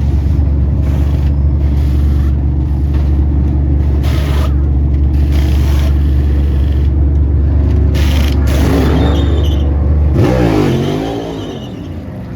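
NASCAR Cup Series V8 race cars running at speed on the track, a loud steady engine drone. About ten seconds in the drone drops away and an engine note sweeps down and back up as cars pass.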